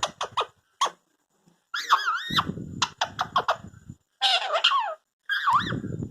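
Indian ringneck parakeet scolding: a few short sharp clicks and chirps, then three bursts of harsh, wavering squawks.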